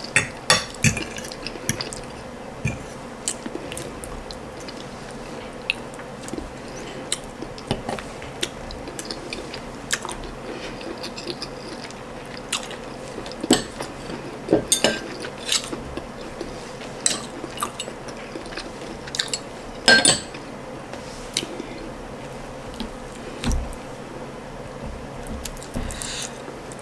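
Close-miked eating sounds: chewing and wet mouth noises with scattered sharp clicks and knocks against a plate, as ndole stew and boiled ripe plantain are eaten by hand.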